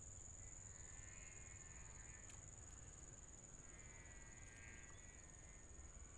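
Faint steady high-pitched drone of insects, with two fainter calls about a second in and about four seconds in.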